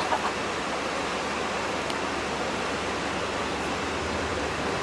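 Steady rushing of river rapids in the gorge far below, an even hiss-like noise with no distinct events.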